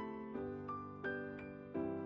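Gentle background piano music: single notes struck about three times a second, each fading, over held lower chords.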